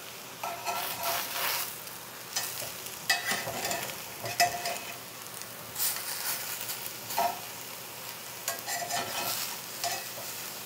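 Metal tongs scraping and clicking against a cast-iron skillet several times as oyster mushrooms are turned over, over a quiet, steady sizzle of the mushrooms searing in a dry, oil-free pan.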